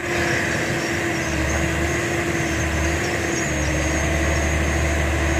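LonKing excavator's diesel engine running steadily.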